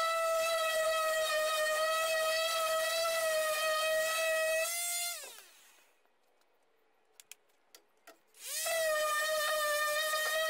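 Electric random orbital sander running with a steady whine while sanding red oak canoe gunwales. About halfway through it is switched off and its pitch falls away as it spins down, a few light clicks follow, and near the end it starts up again.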